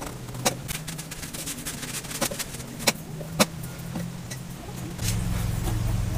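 Utility knife slicing through the rubber of a small nylon-ply pickup-truck tyre, which has no steel belt and so can be cut by hand, with a few sharp clicks as the blade works through. A low steady hum grows louder about five seconds in.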